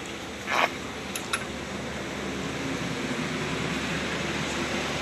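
Steady road-vehicle engine noise, slowly growing louder, with a brief scrape about half a second in and a sharp click just after a second.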